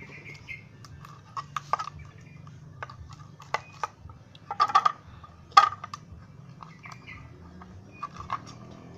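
Glue-and-activator slime being stirred and squished with baby oil worked in, a run of irregular sticky clicks and squelches that are loudest about halfway through.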